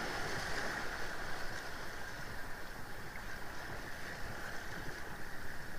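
Small sea waves washing over shoreline rocks, with wind buffeting the microphone: a steady wash of noise.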